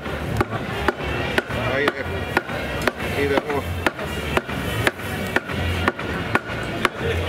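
Cleaver chopping roast meat on a wooden block, sharp blows about twice a second, with music playing underneath.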